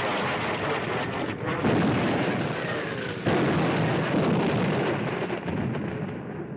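Sound-effects track of a bombing raid: a dense, continuous rumble of bomb explosions, with sudden louder blasts about one and a half and three seconds in.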